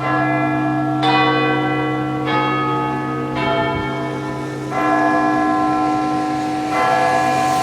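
Church bells of Notre-Dame in Montreal ringing, with a fresh strike every second or two and each bell ringing on over a low, steady hum.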